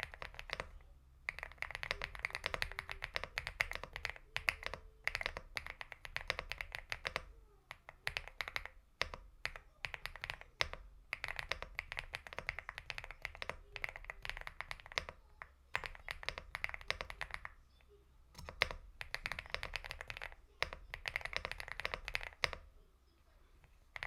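Typing on a Leobog Hi75 aluminium-case mechanical keyboard with Leobog Star Vector switches: fast runs of key clacks in bursts of a few seconds, with short pauses between them.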